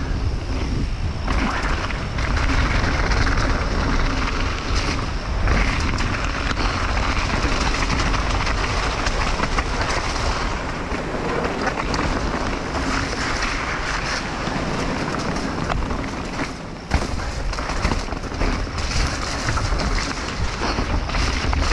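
Mountain bike running down a rough trail: tyres rolling over rock and gravel and the bike rattling steadily, with wind rush on the microphone. A brief lull about three-quarters of the way through ends in a sharp knock.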